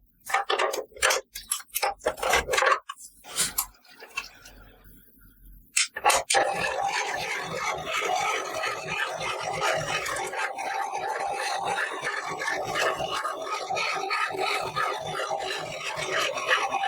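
Toy food and its packaging being handled for ASMR. First comes a run of separate taps and clicks, then, about six seconds in, a continuous scratchy rubbing and scraping that goes on steadily.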